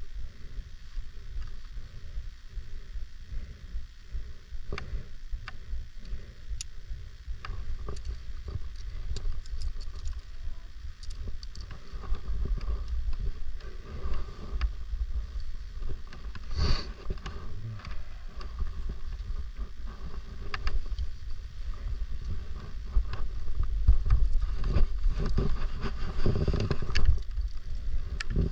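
Low, gusting rumble on a GoPro's microphone, with scattered clicks and knocks and a short scrape about halfway through; it grows louder near the end.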